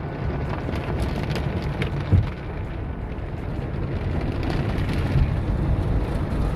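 Automatic car wash heard from inside the car's cabin: water and foam spraying and pattering on the windshield and roof over a steady low rumble, with a single thump about two seconds in.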